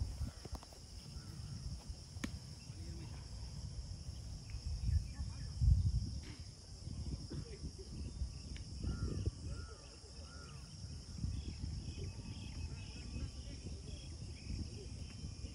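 Steady high-pitched chorus of insects, with a low, uneven wind rumble on the microphone that swells about five to six seconds in. Three short chirps come a little after the middle.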